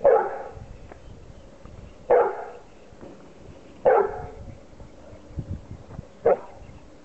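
Bullmastiff barking four times, about two seconds apart: short single barks, each cutting off sharply.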